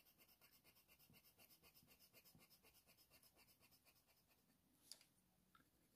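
Near silence, with the very faint, rapid scratching of a Faber-Castell Polychromos coloured pencil shading on hot-press watercolour paper, and one tiny tick about five seconds in.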